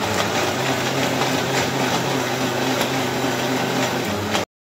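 Electric mixer grinder with a stainless-steel jar running at speed, blending mango pulp with ice cubes into juice. A steady motor hum runs under the loud churning, which cuts off suddenly near the end.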